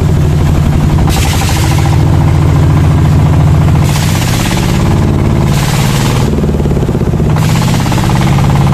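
A small boat engine running steadily with a fast, even beat as the longboat travels upriver. Over it is a hiss of heavy rain that swells and fades several times.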